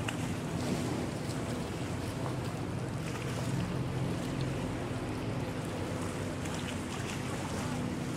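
Unmanned speedboat's engine running steadily at speed as the boat circles on its own, a continuous drone heard over water, with wind on the microphone.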